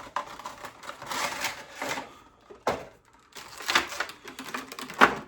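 Funko Pop packaging being handled as the vinyl figure is pulled out of its cardboard box and plastic tray: irregular rustling and scraping with a few sharp clicks, the loudest near the end.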